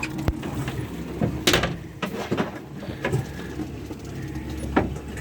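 Fishing boat's engine idling with a steady low hum, with several sharp knocks and clanks on board, the loudest about a second and a half in and near the end.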